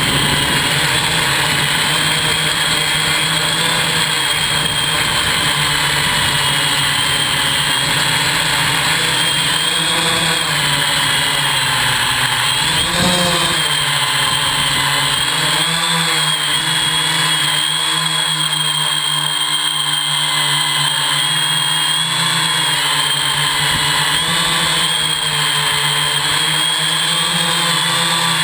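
Electric motors and large two-blade propellers of a hexacopter running in flight, a steady buzzing hum whose pitch wavers up and down as the motors change speed.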